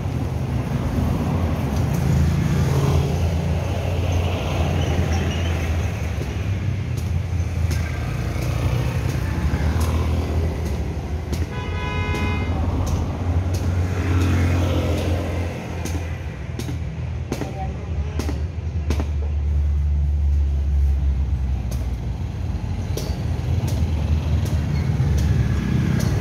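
Street traffic: cars and motorcycles passing close by, steady engine and tyre noise that swells and fades as each goes past. A vehicle horn sounds once, briefly, about twelve seconds in.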